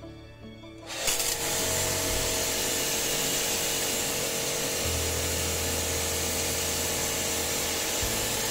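A motor-driven machine starts about a second in and runs steadily, a strong even hiss with a steady hum.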